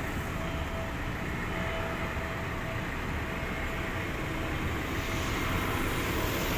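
Steady city traffic noise from cars on a road, an even rumble with a faint steady hum and no distinct single event.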